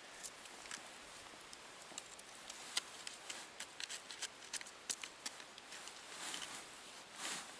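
Faint, irregular clicks and ticks over a soft rustling hiss, thickest in the middle few seconds.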